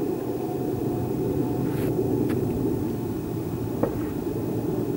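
A steady low rumble, with a few faint clicks, the sharpest about four seconds in.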